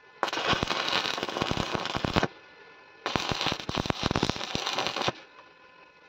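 Stick (arc) welding on steel: two tack welds of about two seconds each, with a pause of about a second between them, as the electrode arc joins square steel bars to the frame.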